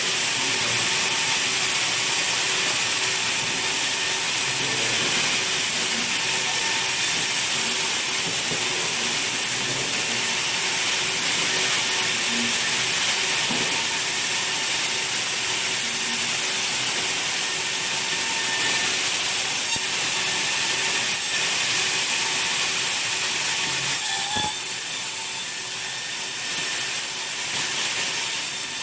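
Sawmill saw running through wood, a steady loud hissing with a faint steady hum beneath it. A knock about twenty-four seconds in, after which the sound turns a little quieter.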